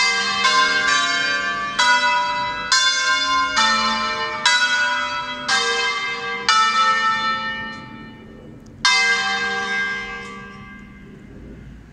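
Church tower bells of several different pitches ringing for Mass, struck one after another roughly once a second, each note ringing on as the next sounds. After a short pause one more stroke comes about nine seconds in and is left to ring out.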